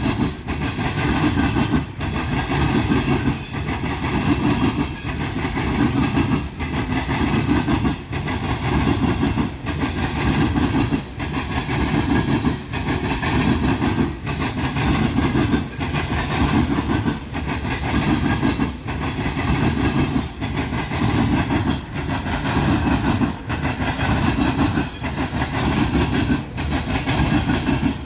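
Freight train's cars rolling across a railroad diamond crossing, with a steady run of wheel clatter. A group of wheel hits comes every second or two as each car's trucks go over the crossing.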